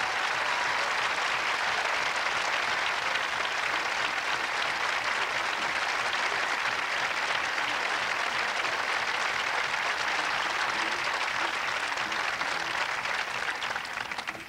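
A concert hall audience applauding steadily in welcome, the clapping tailing off near the end.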